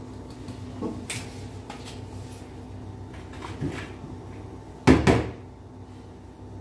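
Knocks and bumps of scooping flour out of a plastic bucket, with a few soft clicks and one loud, sharp double knock about five seconds in.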